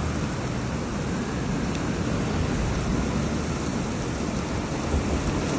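Steady rushing noise of floodwater flowing past an undermined, collapsing dam.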